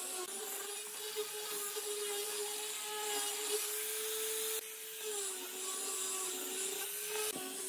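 Angle grinder with a sanding disc running steadily while sanding a wooden board: a steady motor whine over the hiss of abrasive rubbing the wood. The sound jumps briefly about halfway through, and the whine sits a little lower after that.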